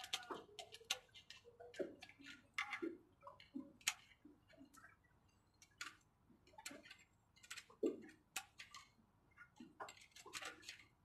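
Screwdriver and metal parts clicking and tapping on a Bosch inline diesel injection pump from a Mitsubishi 8DC engine as it is taken apart: irregular light metallic clicks, a few of them sharp, with soft knocks in between.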